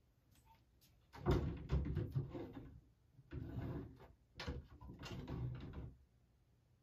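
A closet door being opened and shifted, with three bursts of knocking and rattling that begin about a second in.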